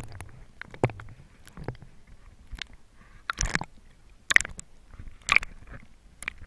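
Water sloshing and splashing around a camera held at the waterline, going under and back up, in irregular sharp splashes about once a second.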